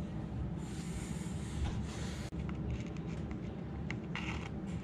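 Faint rustling and small clicks of cloth-gloved hands handling the broken sherds of a painted pottery jar, over a steady low room hum, with a short scrape near the end.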